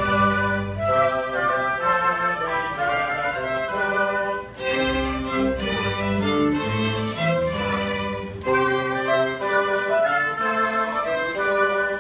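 Small chamber ensemble of violins and other bowed strings with flute and woodwinds playing a piece together, with brief breaks between phrases about four and a half and eight and a half seconds in.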